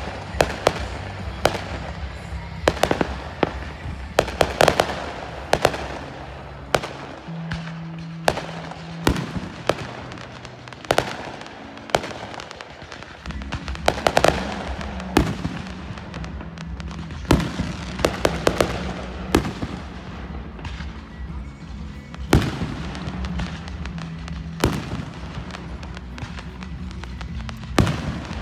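Aerial fireworks shells bursting one after another, dozens of sharp bangs, some with crackle, over music playing underneath. The music drops away for a few seconds about seven seconds in and comes back around thirteen seconds.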